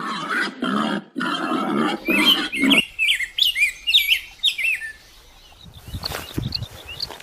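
Four harsh animal calls in quick succession over the first three seconds, with small birds chirping over the last of them. The chirping goes on for a couple of seconds after the calls stop.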